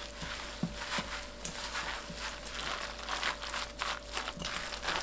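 A gloved hand squishing chopped perilla leaves, scallion and chili through thick flour batter in a stainless steel bowl: irregular wet mixing with many small crackles.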